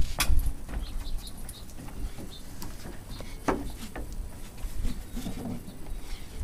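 A Great Dane's paws and claws padding and clicking on a wooden deck as she moves about a box, in scattered irregular steps, with a heavy thump at the very start.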